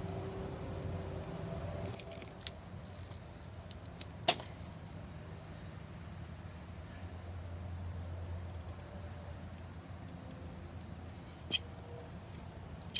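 A few sharp metallic clicks and knocks of tools and brake parts being handled, the loudest about four seconds in, over a steady low background hum.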